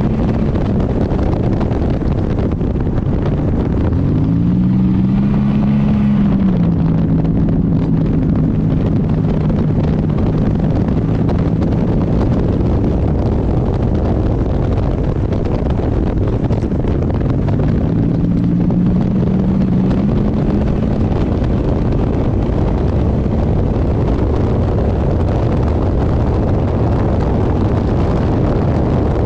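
GM engine in a 24 Hours of Lemons race car running hard on track, its pitch climbing twice, about four seconds in and again past the halfway mark, then holding steady, over a constant rush of wind and road noise.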